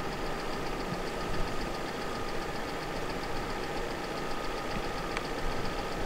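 Vehicle engine idling with a steady hum, a faint steady tone above it and a light, evenly spaced ticking.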